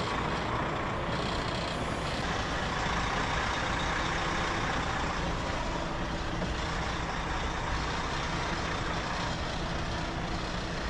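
Heavy goods lorry's diesel engine running steadily at low speed as the truck is manoeuvred into a parking space.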